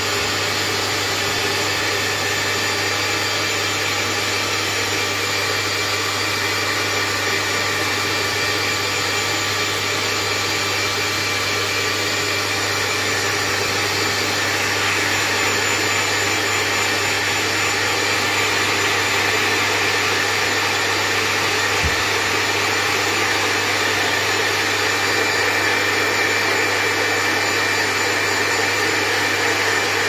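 Handheld hairdryer running steadily, blowing air with a low hum under the rush.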